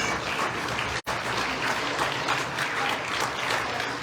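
Crowd applauding, a dense patter of many hands clapping, with a brief dropout in the sound about a second in.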